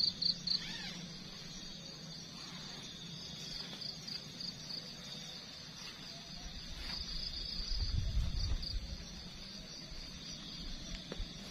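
Insects chirping in quick, repeated high-pitched pulses, with a low rumble swelling about seven to nine seconds in.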